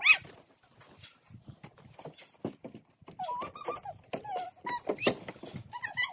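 Bare skin and feet squeaking on a plastic playground slide as children climb up it, mixed with knocks and scuffs on the slide. There is a loud rising squeak at the very start, then a run of short squeaks in the second half.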